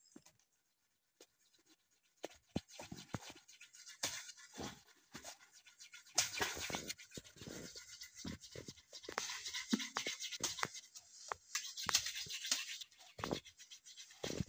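Dense rustling and scraping of leaves and stems close to the microphone, with many irregular snaps and knocks, as of someone pushing through thick undergrowth. It starts about two seconds in, after a near-silent moment, and grows busier from about six seconds in.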